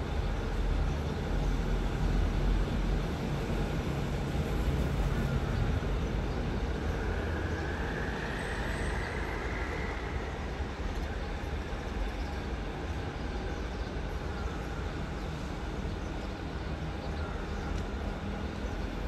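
Diesel-electric locomotive engine running, a deep steady rumble, with a higher hiss swelling and fading about eight to ten seconds in.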